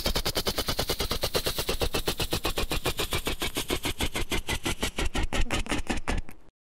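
Helicopter rotor blades chopping: a fast, even thudding that slows slightly as the helicopter sets down, then cuts off suddenly near the end.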